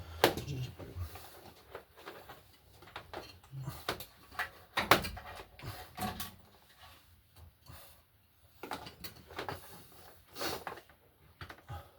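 Irregular knocks and clicks of parts and tools being handled during car repair work, with a sharp knock just after the start and a cluster of louder knocks around five seconds in.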